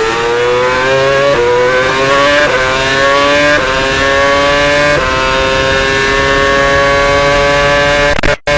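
Formula 1 car's 2.4-litre V8 engine heard onboard, accelerating hard through the gears. The pitch climbs and drops sharply at each of four quick upshifts, then holds steady at high revs for about three seconds. The sound cuts out for a split second near the end.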